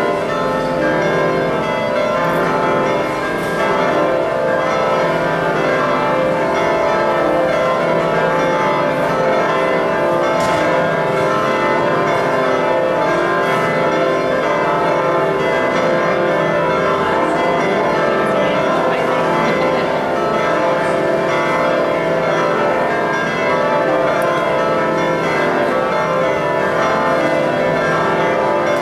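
Church bells ringing continuously, several bells sounding together in a steady, dense peal.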